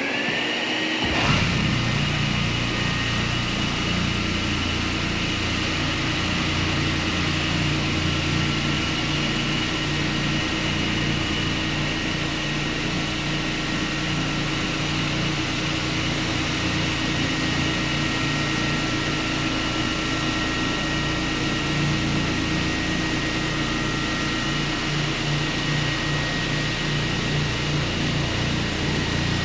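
Hyper Orbit random-orbit floor sander running steadily as it is floated along the perimeter of a wood floor, a constant machine hum with a steady high whine.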